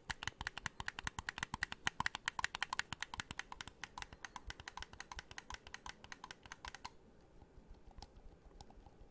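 Buttons on a handheld game controller clicked rapidly and repeatedly, many presses a second, up close. The clicking stops about seven seconds in, leaving only a few scattered clicks.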